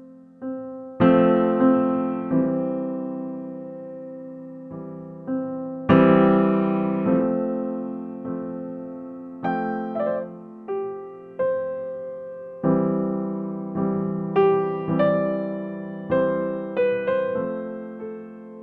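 Gentle background piano music: chords and single notes struck one after another and left to ring and fade.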